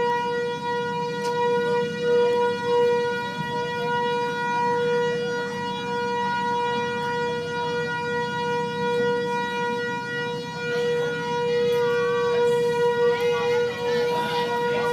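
Outdoor tornado warning siren sounding one steady tone at constant pitch, warning of a tornado.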